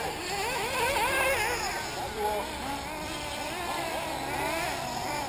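Several 1/8-scale nitro RC buggy engines running at once, their high pitches rising and falling as they rev up and back off.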